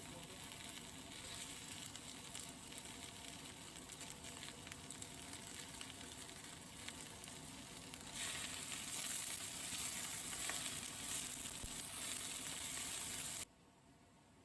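Stir-fried sundae sizzling as it fries in a pan, a steady hiss that gets louder about eight seconds in and cuts off abruptly near the end.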